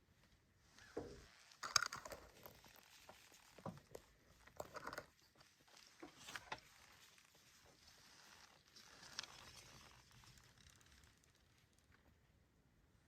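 Soft rustling and crunching in a few scattered bursts, with a sharp crackle a little under two seconds in that is the loudest moment.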